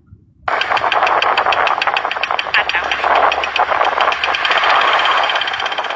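Rapid, evenly spaced mechanical ticking over a steady rush of wind and road noise, cutting in after a brief gap of silence near the start.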